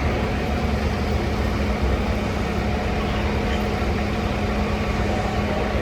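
Heavy diesel engine idling steadily with a constant low hum.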